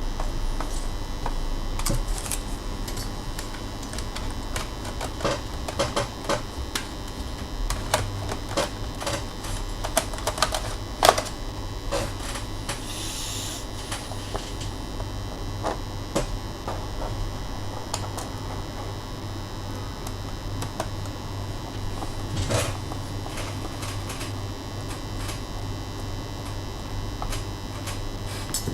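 Scattered sharp clicks and taps of small plastic and metal laptop parts being handled, most of them in the first half, with a brief scraping hiss in the middle, over a steady electrical hum.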